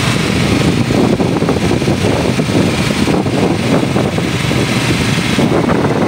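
A boat's motor running steadily, a constant mechanical drone.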